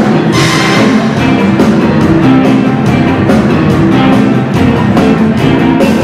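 Rock band playing loudly, with a steady drum beat and electric guitar.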